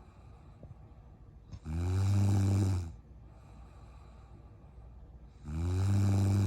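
A sleeping woman snoring: two loud, low snores, each about a second long and about four seconds apart, with quiet breathing between them.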